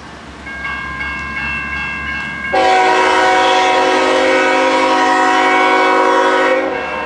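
Grade-crossing warning bell ringing in a steady pulse. About two and a half seconds in, a diesel locomotive's multi-chime horn sounds one long blast of about four seconds, drowning the bell, as the freight train approaches the crossing.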